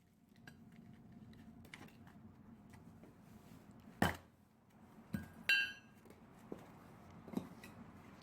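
A few sharp strikes of an axe splitting firewood: one loud blow about four seconds in, then two quick knocks a second later, the second with a short metallic ring, and lighter taps after.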